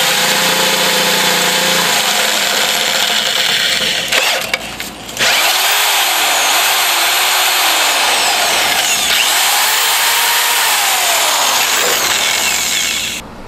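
Corded electric drill boring into the steel frame of a Toro T-bar walk-behind mower to enlarge its bolt holes. It runs in two long stretches with a short break about four seconds in, its pitch wavering up and down in the second stretch, and stops just before the end.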